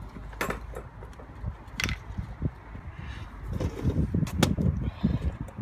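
Wind buffeting the microphone in an uneven low rumble, with two sharp clicks in the first two seconds and heavier rumbling in the second half.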